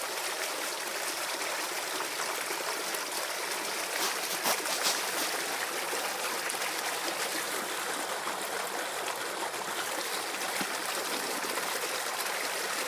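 Water from a broken water main running and trickling over the ground in a steady rush, with a few slightly louder splashes about four to five seconds in.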